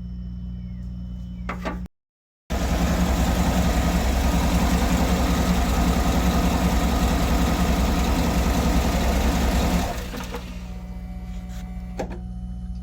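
Cadillac Escalade engine running steadily close by, then cutting out about ten seconds in as the crank position sensor wiring is wiggled. The stall points to a poor contact in the crank position sensor connector's wiring.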